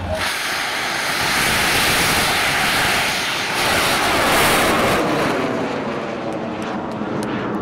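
Large Thai bang fai saen rocket firing off its launch tower: a sudden, loud rushing roar of burning propellant. A tone sweeps downward about four seconds in, then the roar fades as the rocket climbs away.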